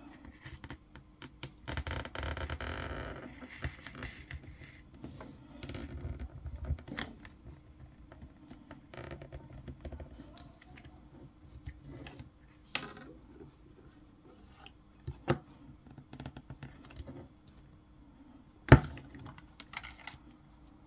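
Hands handling an iPhone and a plastic film sheet on a work mat: scattered light taps and clicks, with a rustle of plastic film about two seconds in and again around six seconds. One sharp click comes near the end.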